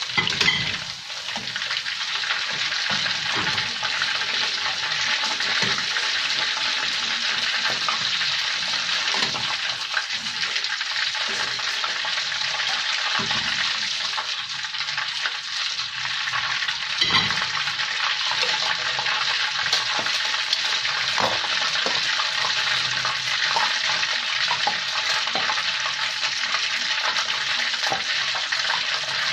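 Chicken frying in a hot pan, a steady sizzle, stirred with a utensil that knocks against the pan a few times, sharply about half a second in and again past the middle.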